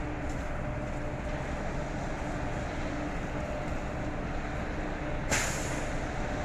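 Steady rumble of a running vehicle with faint humming tones. About five seconds in comes a short, sharp hiss that fades quickly.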